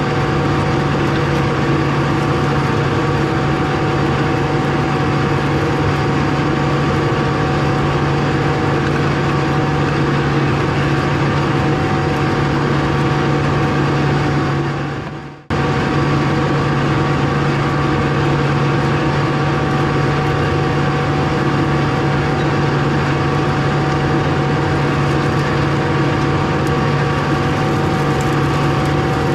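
Tractor engine running steadily with a constant low hum. The sound fades away about halfway through and comes back abruptly.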